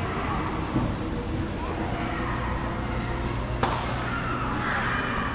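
Murmur of distant voices over a steady low hum, with one sharp knock about three and a half seconds in.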